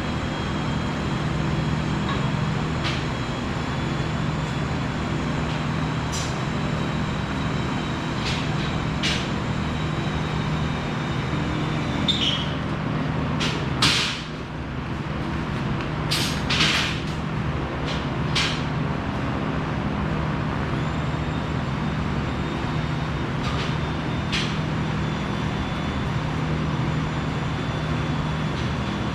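Steady machinery hum with scattered short, sharp hisses and clicks, most of them bunched together around the middle.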